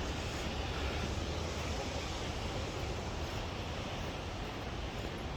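Waterfall rushing in a narrow gorge: a steady, unbroken noise of falling water with a deep low rumble.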